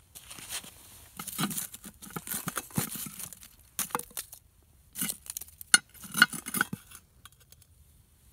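A metal lid lifter scraping and clinking against the coal- and ash-covered lid of a cast-iron Dutch oven as the lid is pried up. There are irregular scrapes and crunches of charcoal, with a couple of sharp metal clinks about six seconds in.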